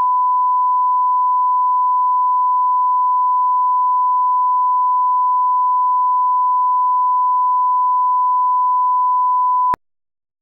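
Steady 1 kHz line-up test tone, the reference tone that goes with SMPTE colour bars, held at one pitch and cutting off abruptly near the end.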